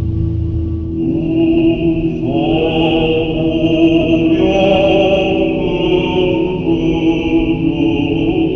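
Armenian Church requiem chant: a voice sings a slow, melismatic line over a steady held drone note, coming in about a second in.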